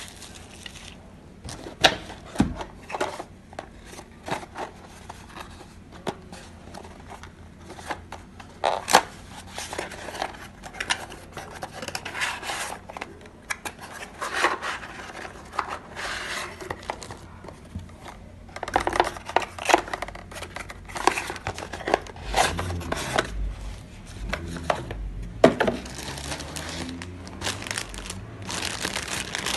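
Plastic packaging and bubble wrap crinkling and cardboard box inserts being handled, with irregular sharp clicks and crackles and a few dull low thumps from handling.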